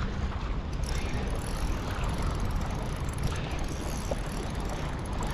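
Steady low rumbling noise of a boat out on the sea, with wind buffeting the microphone; no distinct events stand out.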